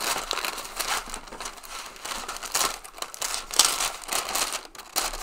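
Tissue paper crinkling and rustling as scissors cut through its sticker seal and the paper is folded open.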